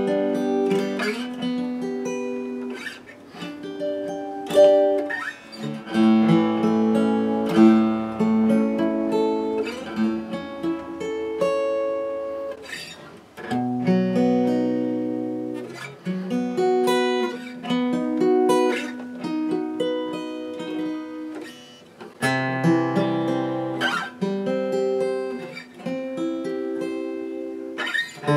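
Gibson J-50 flat-top acoustic guitar played unplugged: a G chord strummed in several different fingerings up the neck, each chord struck and left to ring before the next.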